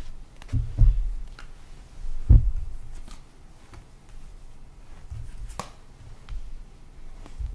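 Tarot cards being drawn from the deck and laid down on a cloth-covered table: a few soft thumps, loudest about a second in and again a little past two seconds, with light clicks and taps of card handling.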